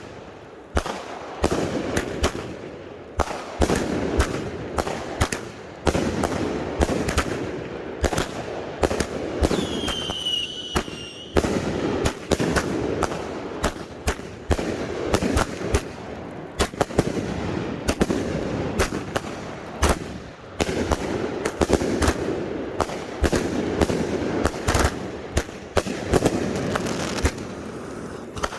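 Consumer firework cakes firing: a dense, irregular run of sharp launch shots and bursting reports throughout, with a short whistling tone about ten seconds in.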